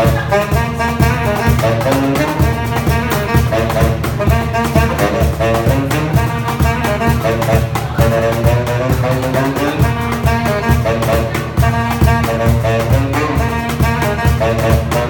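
Saxophone playing a flowing jazzy melody over a steady beat of hand-played cajón.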